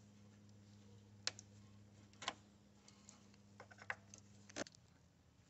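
Faint, scattered clicks and light ticks of gloved hands handling the plastic wiring-harness clips and connectors on a car headlight housing, over a low hum that cuts off near the end.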